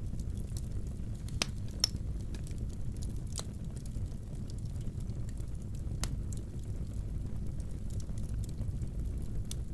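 Wood fire burning in a fireplace: a steady low rumble with sharp crackles and pops from the burning logs, the loudest snapping just under two seconds in.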